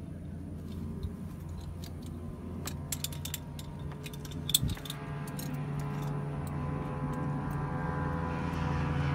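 Small turbine helicopter engine running with a low hum, then building into a rising whine that grows steadily louder from about halfway: the engine spooling up. Several sharp metallic clicks and jingles from straps or buckles come between about three and five seconds in.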